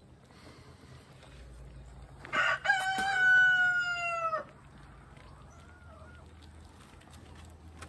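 A rooster crowing once: a single cock-a-doodle-doo about two seconds long, beginning a couple of seconds in, its pitch sagging toward the end.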